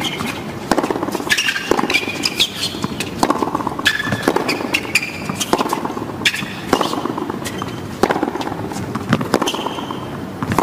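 Tennis rally on a hard court: a run of sharp racket-on-ball pops at uneven intervals, mixed with short high-pitched sneaker squeaks on the court surface.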